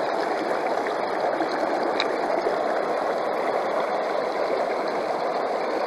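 River water rushing steadily through and around a metal gold sluice box.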